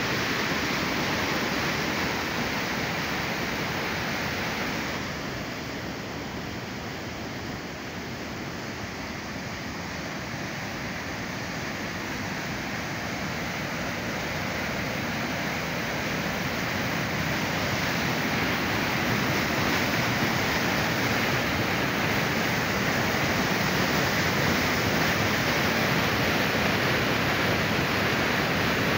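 Fast white water rushing and churning down a concrete channel, a steady rushing noise that dips a little about five seconds in and then grows gradually louder.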